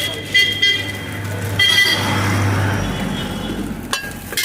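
Road traffic passing a roadside stall: a motor vehicle goes by while a horn gives several short toots in the first two seconds.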